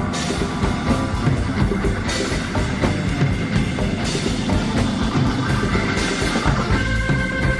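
Background music with drums and a steady beat, held notes over it changing near the end.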